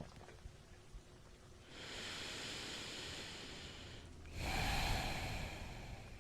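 A man's deep breath close to the microphone: a long breath in, then a louder sigh out.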